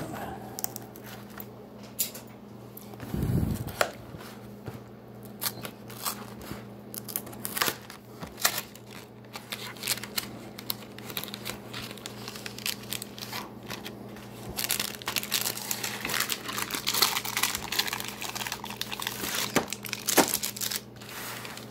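Cardboard box of refrigerated cookie dough being torn open by hand, then the packaging crinkling as the plastic-wrapped dough tray is handled. The irregular tearing and crackling runs throughout and gets busiest in the last several seconds.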